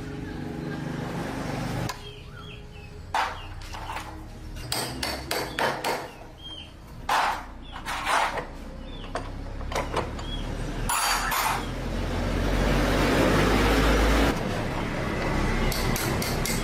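A run of separate sharp knocks and taps, like hand tools striking metal, followed by a few seconds of steady rushing noise.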